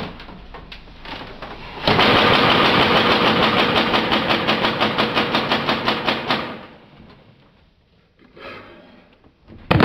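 Rapid-fire Nerf dart blaster firing a long burst of about ten shots a second, starting about two seconds in and lasting about four seconds, after quieter rhythmic pulsing. A short loud noise comes near the end.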